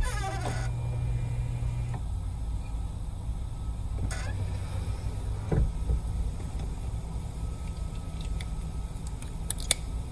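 A car trunk lid opening with a low hum for about two seconds. Then come a few knocks and clicks as cables are handled inside the trunk, over a steady low rumble.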